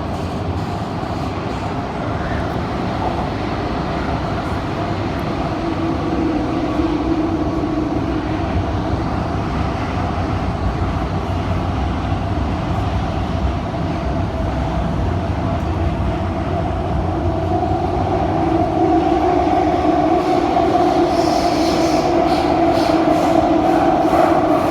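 KSF CT251 metro train heard from on board while running between stations: a steady rumble with a traction-motor whine that grows louder in the last third. Near the end comes a run of quick, evenly spaced knocks and a brief high squeal, the weird sounds the title puts down to flat spots on the wheels.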